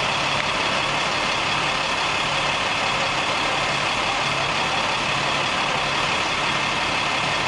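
A large vehicle engine running steadily at idle, with a constant higher-pitched whine over it.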